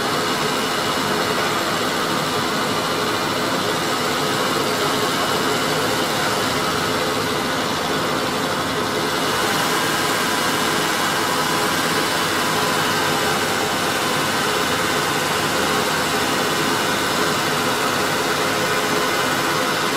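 Honda Accord V6 engine idling steadily, with a constant rushing noise over it.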